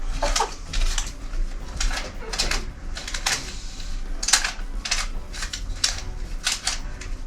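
Irregular clicks, clacks and rustles of small desk objects being handled and rummaged through, a few per second.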